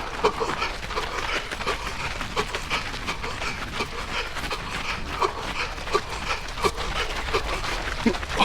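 A runner's heavy, rhythmic panting and wheezing breaths while running hard.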